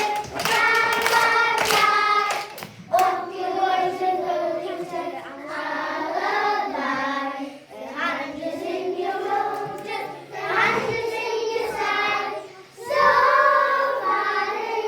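A group of young children singing a Dutch song together in phrases, with short breaths between them, and hand claps in the first couple of seconds.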